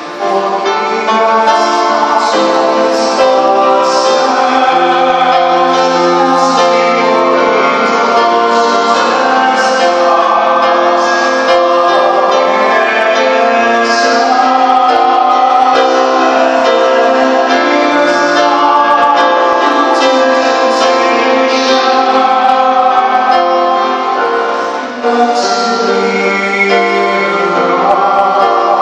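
A vocal trio of male and female voices singing a church song with piano accompaniment, the voices amplified through microphones.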